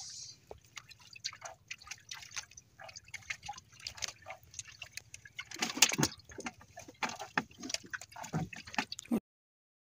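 Small irregular drips and splashes of water as a fishing hand line is pulled in hand over hand over the side of a boat. The sound cuts out completely near the end.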